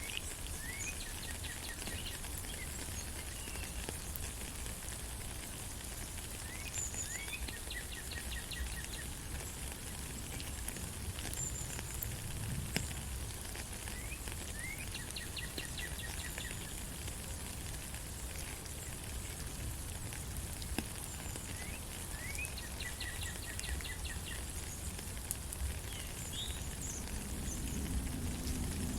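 Steady rain falling in a forest, with a bird repeating the same short song about every six seconds: a rising note followed by a quick trill. A few short high chirps come in between.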